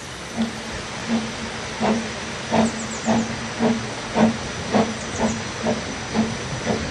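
The narrow-gauge steam locomotive Dolgoch, an 0-4-0 well tank, working along the line with regular exhaust beats about two a second over a steady steam hiss; the beats quicken slightly and grow a little louder as it approaches. Faint bird chirps sound now and then.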